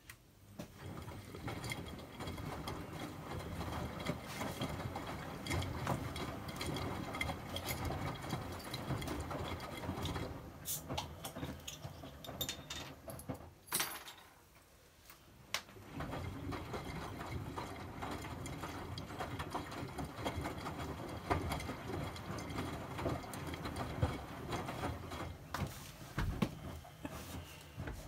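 Miele W2241 washing machine tumbling the laundry during the wash phase: a churning rumble of the drum turning with wet washing. It pauses about halfway through and then starts turning again.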